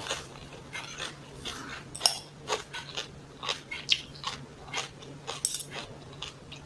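A person eating close to the microphone: chewing and biting food with irregular wet clicks and smacks, two to three a second, over a faint steady low hum.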